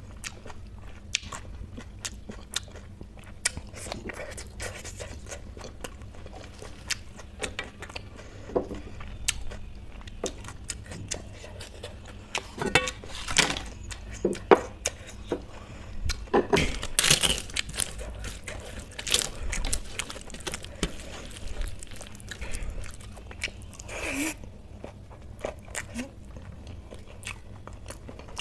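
Close-miked eating sounds: chewing of kadhi, rice and pakoda eaten by hand, with many small clicks and louder crunchy bites of fried snacks, thickest about halfway through.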